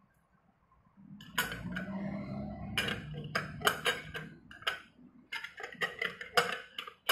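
Metal clinking and scraping as a flat clutch-nut spanner is handled and fitted over the hex nut of a scooter's CVT clutch assembly. It begins about a second in with a quick run of sharp clicks.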